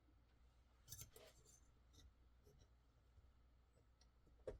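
Near silence with a few faint clicks and light rubbing from small pocketknife parts and a screw being handled, one about a second in and a sharper one near the end.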